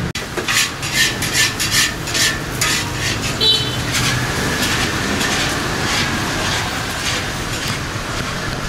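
Metal utensils scraping and clinking against a pan in quick strokes, with a brief metallic ring about three and a half seconds in, then steady sizzling from food frying.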